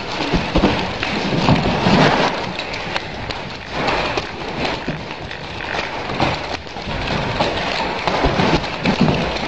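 Two nunchaku being whirled at once: a loud, constant rushing noise full of quick sharp clicks and knocks, swelling twice.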